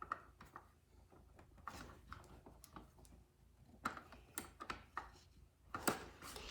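Scattered light clicks and taps of plastic toy pieces and packaging being handled and pulled from a box, with quiet gaps between them; the clearest taps come near the end.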